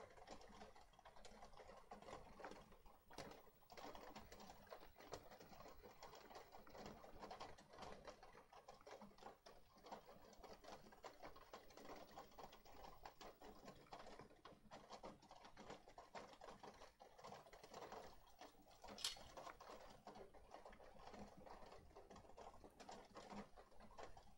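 Faint, steady patter and dripping of rain on the shelter's corrugated metal roof: a run of small ticks, with one sharper click about nineteen seconds in.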